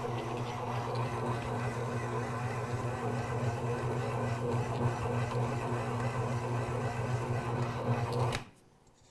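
Smeg 600-watt stand mixer's motor running steadily as its dough hook kneads a sticky bread dough, then switching off abruptly about eight seconds in.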